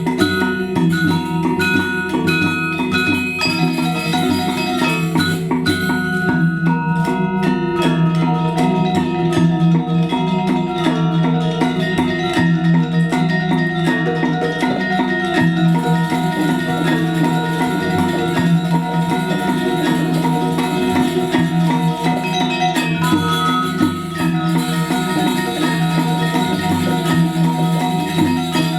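Balinese gamelan of struck bronze metallophones and gongs playing a fast, dense, continuous piece accompanying Legong dance.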